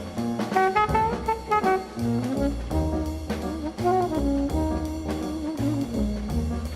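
Background music: up-tempo jazz with brass instruments playing a melody over a walking bass and drums.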